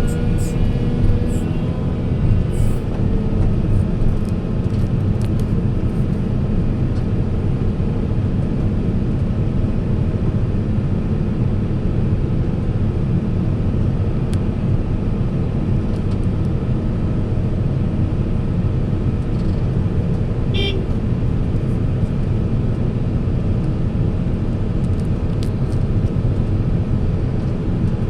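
Heavy diesel machinery engine running steadily at a constant pitch, with a brief high-pitched chirp about twenty seconds in.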